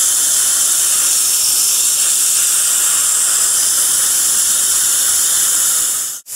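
Steady hiss of a dental handpiece and its cooling air stream while a porcelain restoration is polished with a green polishing point. The sound cuts out abruptly near the end.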